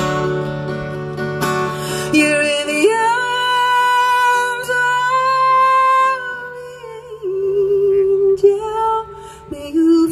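A woman singing long, held wordless notes over a strummed acoustic guitar. About three seconds in, her voice slides up to a long high note, then steps down to lower notes.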